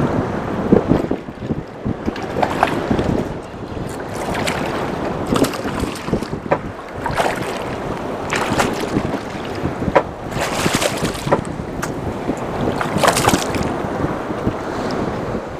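Wind buffeting the microphone over choppy sea, with water slapping against a small open boat's hull in irregular splashes every second or two.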